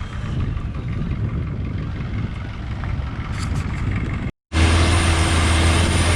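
Boat engine running steadily, with a brief cut about four seconds in, after which the engine drone is louder and steadier.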